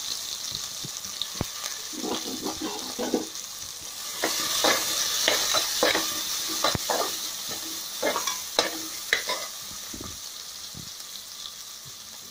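Chopped onion sizzling in hot oil in a steel pan, with a steady high hiss. A slotted metal spatula scrapes and clicks against the pan as the onion is stirred, the clicks coming thick and fast from about two seconds in to near the nine-second mark.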